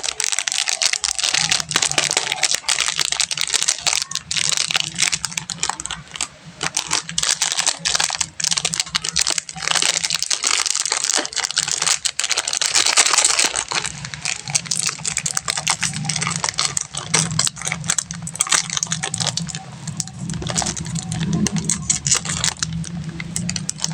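Candy wrappers crinkling and crackling as they are unwrapped by hand, a dense run of small crisp clicks, with a steady low hum underneath from about a second in.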